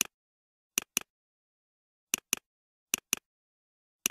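Computer mouse button double-clicking, about four quick double-clicks with short pauses between them.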